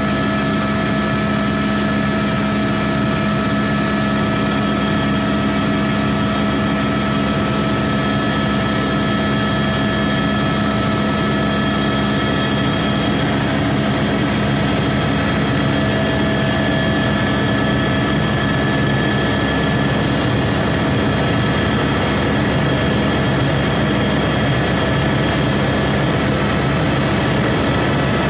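Helicopter cabin noise in flight: a loud, steady engine and rotor drone with several steady high whining tones over it.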